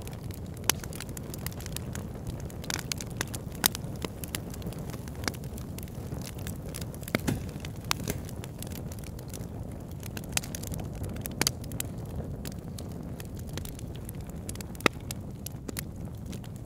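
Wood fire in a fireplace crackling: irregular sharp pops and snaps over a steady low rumble.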